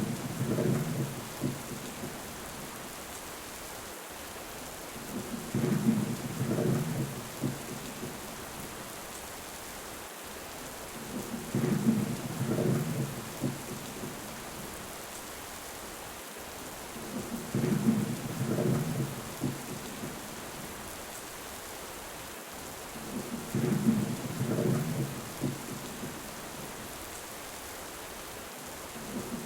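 Thunderstorm: steady rain with low rolling thunder rumbles, each lasting two to three seconds, coming back about every six seconds.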